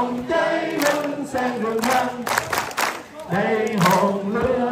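A group of people singing a Vietnamese song together in chorus.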